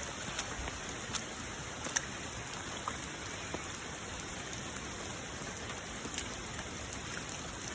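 Steady rain falling, with scattered louder drops ticking now and then.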